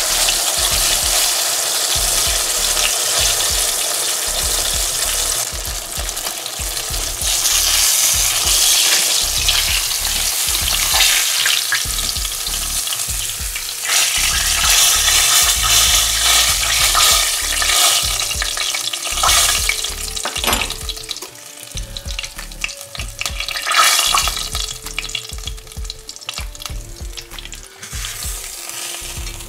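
Floured Bangamary fish fillet frying in hot vegetable oil in a small pan: a dense, steady sizzle with crackling that thins to scattered crackles in the last third.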